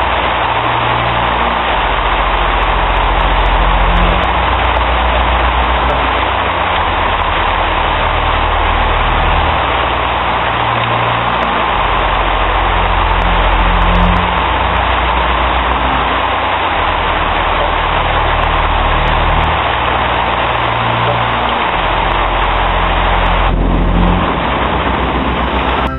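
Heavy rain pouring down, a loud steady hiss, over low sustained music notes.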